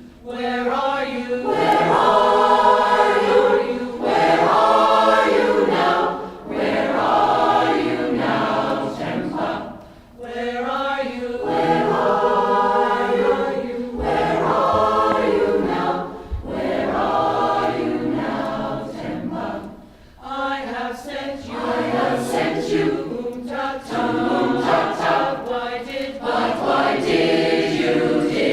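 Mixed community choir singing, its phrases a few seconds long with brief breaks for breath between them.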